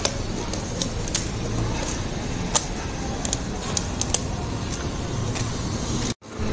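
Busy street ambience: a steady wash of traffic and crowd noise with scattered sharp clicks, cutting out abruptly for a moment near the end.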